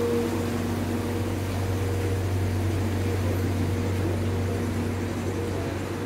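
Canal cruiser's inboard engine running as the boat moves off, a steady low hum with a fainter higher drone that fades after about five seconds.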